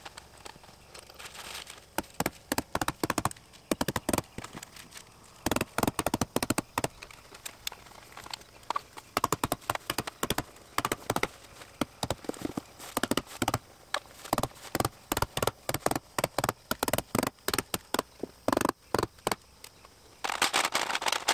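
Hammer stapler (hammer tacker) driving staples through woven house wrap into the wood wall framing: sharp smacks in quick runs of several strikes, with short pauses between runs.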